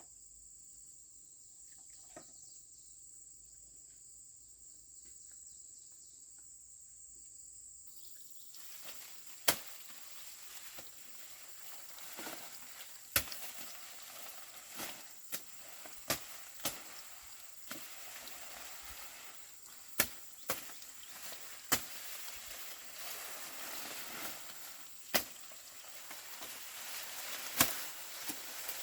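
Steady high trill of an insect, with dry corn stalks and leaves rustling from about 8 s in, broken by sharp snaps every second or two as corn is harvested by hand.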